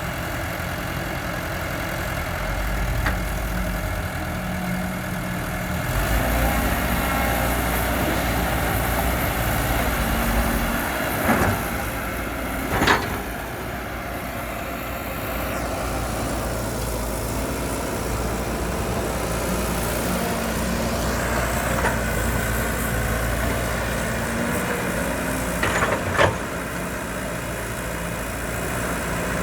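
Heavy earthmoving machinery running, its engine droning steadily and picking up about six seconds in. There are a few sharp clanks, two of them close together about halfway through and one more near the end.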